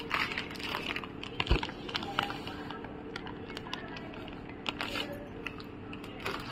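Perforated steel spatula scraping and tapping against a steel pan as semolina is stirred while it roasts, with one sharp knock about one and a half seconds in. Underneath runs a steady low hum.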